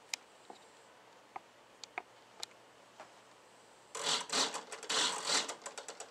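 Hi-Tec HS-7955TG digital servo on a model jet's elevator: a few scattered clicks, then about four seconds in a rapid buzzing chatter. The owner takes it for the servo hunting for its center point and wonders whether it is normal or a sign of binding.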